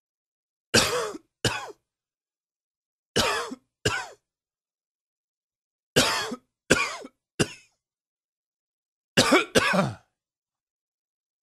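A man's morning smoker's cough: four bouts of short, sharp coughs, two or three at a time, with silent pauses between bouts.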